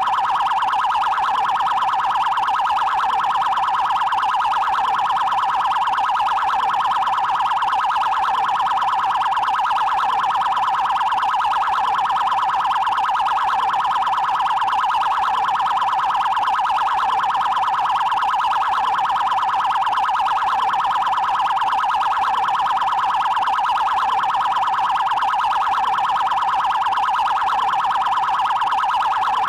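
Brazilian Federal Highway Police (PRF) electronic siren sounding its 'prioridade' tone: a loud, very fast, even warble that holds a steady pitch and level throughout.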